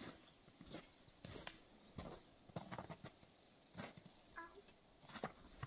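Faint, irregular crackles and rustles of someone moving over the dry forest floor, with a brief high chirp about four seconds in.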